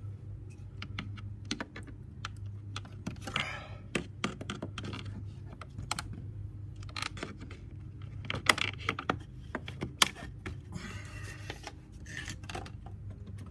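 Clicks, knocks and scrapes of a window side jamb being pried and pulled out of an Andersen window frame, with two sharp snaps about eight and a half and ten seconds in.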